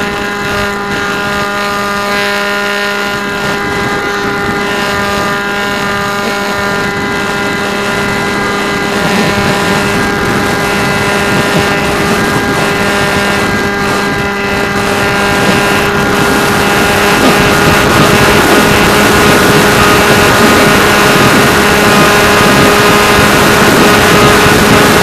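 RC airplane's motor and propeller running steadily, a constant whine heard from the onboard camera, with wind rushing over the microphone that grows louder in the second half.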